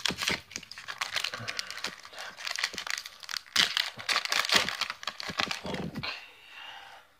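A Pokémon TCG booster pack's foil wrapper being torn open and crinkled by hand. It is a dense, crackly rustle that dies away about six seconds in.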